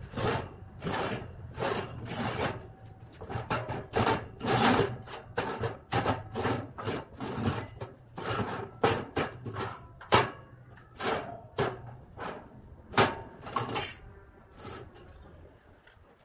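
Square steel tube frames knocking against each other and against a steel work table as they are shifted and lined up. The result is a run of sharp metallic clanks and knocks, each with a brief ring, thinning out about two seconds before the end.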